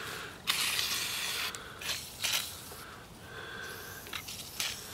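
Aerosol lubricant spray hissing from a can with a straw nozzle onto the seized float arm of an old fuel-tank sending unit to free it: one long burst of about a second, then a few shorter bursts. A few light clicks near the end.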